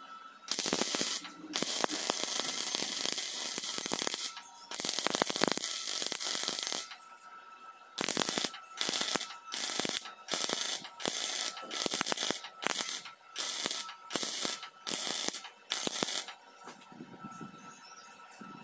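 MIG welding arc on an ACO MIG 200R gas-shielded welder, crackling as it welds a steel piece. There are three runs of a few seconds each at first, then a quick series of about fifteen short bursts, roughly two a second, as the arc is struck and broken over and over.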